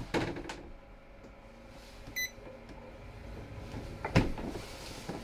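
An RV tankless water heater's wall control panel gives a single short electronic beep about two seconds in as it powers up. A knock comes near the start and another about four seconds in.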